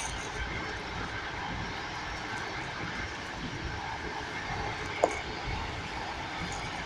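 Steady rumble of a moving passenger train heard from inside the carriage, its wheels running on the rails, with one sharp knock about five seconds in.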